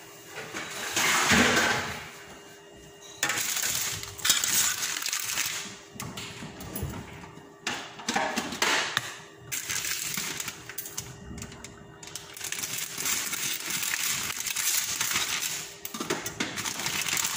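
Plastic packaging around a stack of flour tortillas rustling and crinkling as it is handled and opened, in irregular bursts with short pauses, over a faint steady hum.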